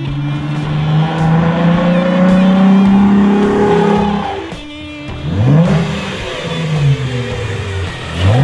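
2017 Jeep Wrangler's 3.6-litre V6 revving through a Flowmaster Outlaw axle-back muffler: a slow climb held for about four seconds that then drops off, followed by a few quick, sharp revs.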